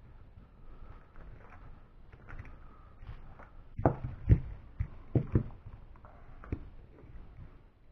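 Hands handling small RC car parts and tools while a steering bellcrank is assembled: scattered clicks and knocks, loudest in a cluster about four to five and a half seconds in.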